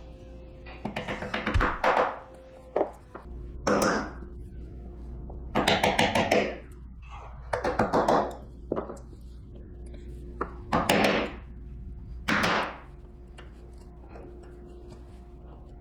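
Chisel driven with a mallet into walnut, chopping out the waste of a dovetail tail board. Short groups of quick, sharp knocks come with pauses of a second or two between them.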